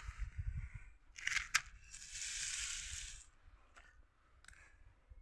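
Handling noises: a few sharp clicks, then about a second of rustling, then a couple of faint clicks.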